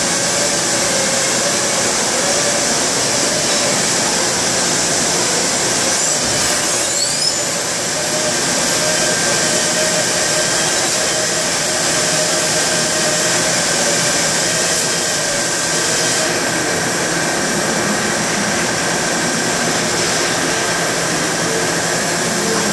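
Mori Seiki NTX2000 mill-turn machine milling spiral grooves into a 4140 steel mandrel: a steady spindle whine and cutting noise over a continuous hiss. A brief rising whistle comes about six to seven seconds in.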